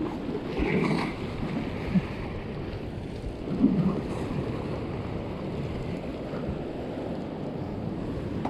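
Sea waves washing and foaming over the shoreline rocks, swelling louder about a second in and again near four seconds, with wind noise on the microphone.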